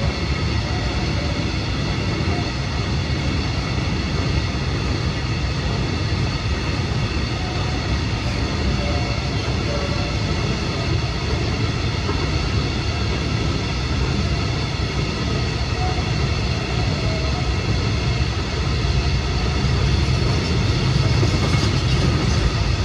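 Freight train hauled by a Freightliner Class 66 diesel locomotive passing over the level crossing: a steady, loud rail rumble that grows a little louder near the end.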